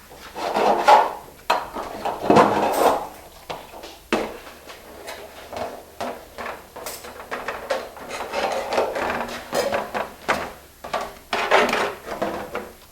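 Copper roofing pans being worked for their half-inch flat-lock folds: irregular scraping and rubbing of sheet copper, with a couple of sharp clicks.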